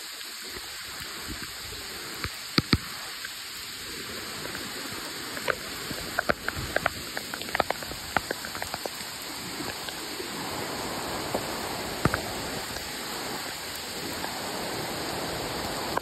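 Steady hiss of rain falling in a forest, with scattered sharp ticks clustered from about two to nine seconds in.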